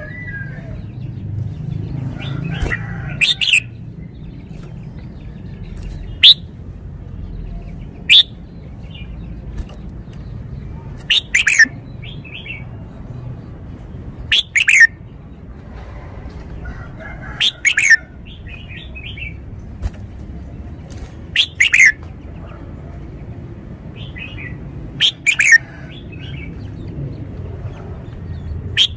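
Red-whiskered bulbul singing: about nine short, loud, clear whistled phrases, each well under a second, spaced two to four seconds apart. A steady low hum runs underneath.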